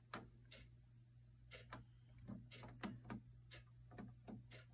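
Faint plastic clicks of an HP printer's control-panel arrow and OK buttons, pressed about a dozen times at an uneven pace while scrolling through the network setup menu, over a low steady hum.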